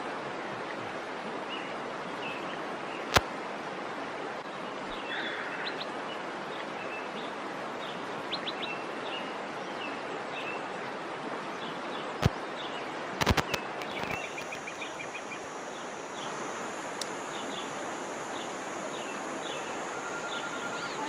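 Steady rushing of the Ouzoud waterfall, with small birds chirping repeatedly over it and a few sharp clicks.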